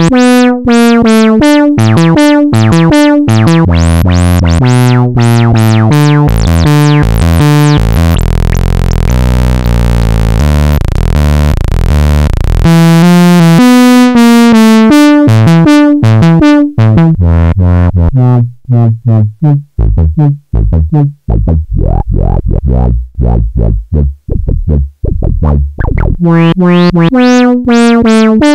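Sawtooth synth sequence played through a Studio Electronics SE 4075 Eurorack filter as its knobs are turned by hand, changing the cutoff and resonance. The repeating short notes thicken into a dense, buzzy tone for several seconds about a third of the way in, then turn short and clipped with brief gaps between them.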